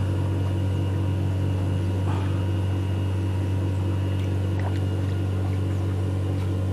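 A small engine running steadily, giving a constant low hum with even overtones and no change in speed.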